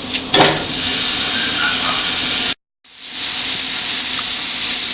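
Ground beef frying in a pan with butter and onion, a steady sizzle. There is a knock about half a second in, after which the sizzle gets louder; it cuts out for a moment midway and then comes back.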